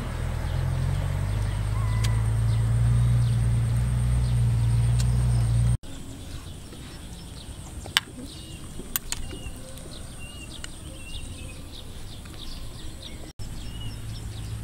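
Small birds chirping repeatedly over a low steady rumble, which drops away in the middle and comes back near the end. In the middle a couple of sharp clicks sound: a metal spoon tapping a ceramic bowl.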